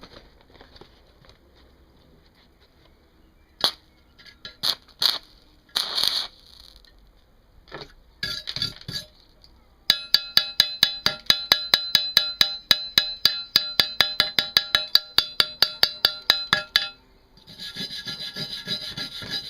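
Metal work on a steel workpiece: a few scattered knocks and short scrapes, then a fast, even run of sharp metallic taps, about seven a second for some seven seconds, that set the steel ringing, and a rough scraping rub near the end.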